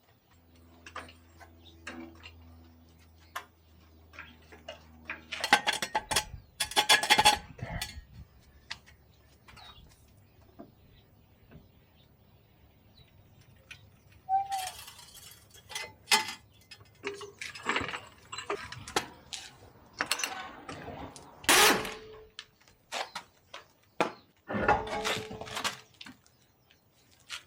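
Metal tools and parts clinking and clattering in irregular bursts during suspension work, with a dense run of rattling clicks about six seconds in and a faint steady hum at the start.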